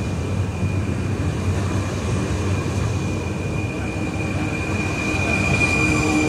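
Rhaetian Railway Capricorn electric multiple units rolling slowly past close by: a steady rumble of wheels on rail, with a thin, steady high wheel squeal that grows a little louder toward the end.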